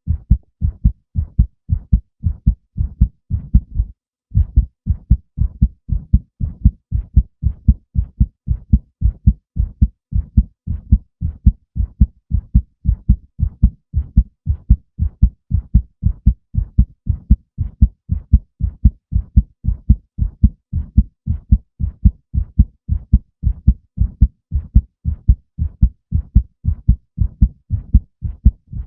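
Human heartbeat: a steady rhythm of paired low thumps (lub-dub), with a brief break about four seconds in.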